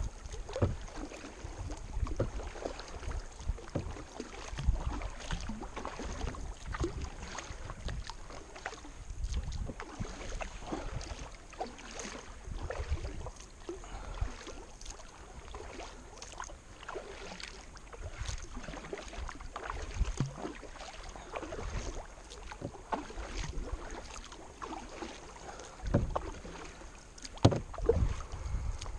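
Kayak paddle strokes dipping and splashing in the river water, irregular and steady-going, with wind buffeting the microphone in low rumbles.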